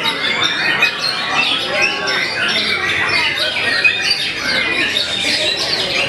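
Several white-rumped shamas singing at once: a dense, unbroken tangle of rapid whistled glides and chattering phrases overlapping one another.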